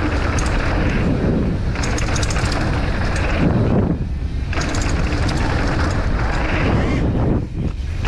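Riding noise of a downhill mountain bike on a dirt trail, heard through a GoPro microphone: a steady rush of wind buffeting and tyre rumble, with scattered light clicks and rattles from the bike.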